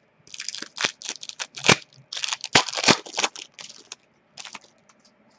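Foil wrapper of a hockey card pack being torn open and crinkled: a run of crackly rustles over about three seconds, then a couple of short ones about a second later.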